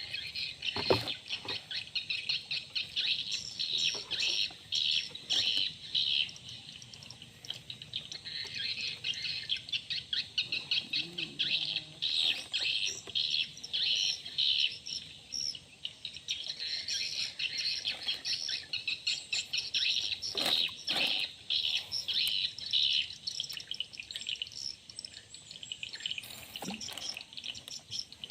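Birds chirping continuously in quick, high repeated notes, with a few soft knocks about a second in, around two-thirds of the way through and near the end.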